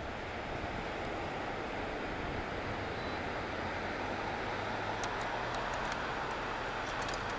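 Steady outdoor rushing noise of breaking surf and wind across the microphone, even in level throughout.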